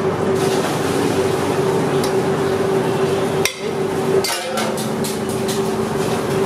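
Several sharp clinks and knocks of metal cookware and utensils, more of them in the second half, over a steady hum.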